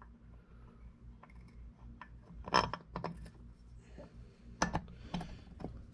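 About five sharp metallic clinks, the loudest about two and a half seconds in: a hammer striking a nut threaded onto a bent cylinder stud of a Yamaha YZ250 two-stroke engine to bend the stud straight.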